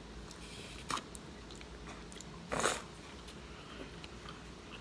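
Close-up eating sounds from boiled crab: biting and chewing, with two short, sharp noises, one about a second in and a slightly longer one about two and a half seconds in.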